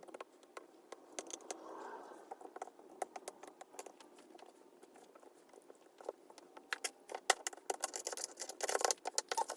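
Small clicks, taps and scrapes of hand tools working on a laptop battery: a plastic syringe and plastic pry tool against the battery cells and aluminium case. The ticks are scattered at first, with a soft scrape early on, then come thicker and louder in the last few seconds.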